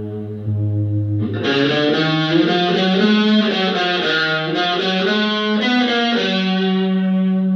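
Explorer-style electric guitar played through an amplifier. A low note rings and fades, then about a second and a half in a run of single notes is picked, settling on a held note near the end.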